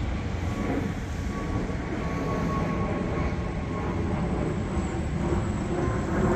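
Wheels of a loaded hand cart rolling over stone paving: a steady, low rumble.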